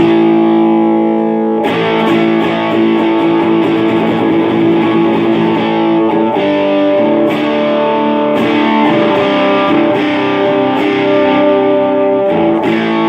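Electric guitar distorted by a Boss DS-1 pedal and played through an amp in a classic rock tone: a chord rings out, then picked notes and chord changes from about two seconds in.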